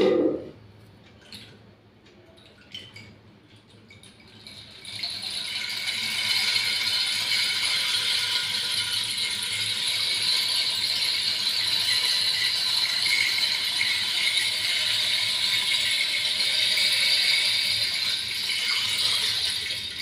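Carved wooden rainstick tilted slowly, its fill trickling down inside as a steady rain-like rattle that sets in about five seconds in and runs on until just before the end. A short low thump comes at the very start, followed by a few scattered clicks.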